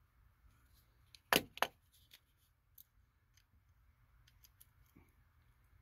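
Two sharp clicks of a hand-held keystone jack termination tool being picked up and handled, followed by a few faint ticks and clicks as a network jack is fitted into its jaws.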